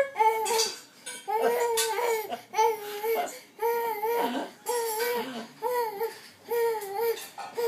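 A toddler's voice letting out a rhythmic string of short, high, steady-pitched 'aah' calls, about ten of them, while bouncing on a Rody inflatable hopping pony.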